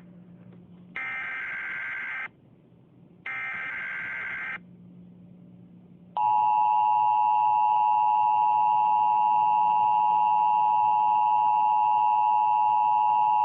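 Emergency Alert System tones: two bursts of the SAME digital header, about a second each with a gap between, then about six seconds in the loud, steady two-tone attention signal begins. These tones announce an emergency alert broadcast.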